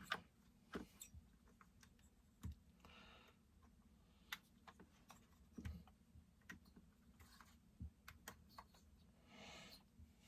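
Faint, scattered clicks and light taps of tools and small parts being handled while a Husqvarna 372XP chainsaw is taken apart, with a couple of soft rustles.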